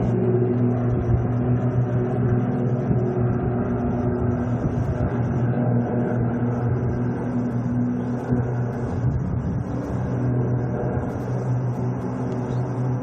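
Steady drone of an Airbus A380's jet engines, a low hum with a few held tones over a broad rush of noise.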